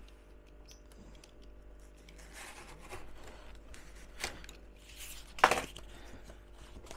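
Cardboard being cut into strips and handled: a few short rasping cuts and scrapes, the loudest a sharp one about five and a half seconds in.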